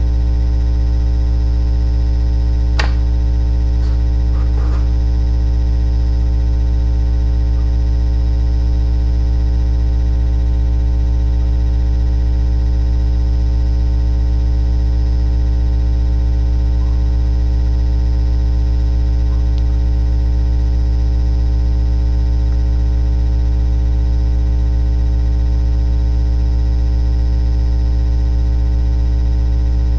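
Steady electrical hum or buzz, unchanging throughout, with a faint click about three seconds in and a few faint short sounds just after.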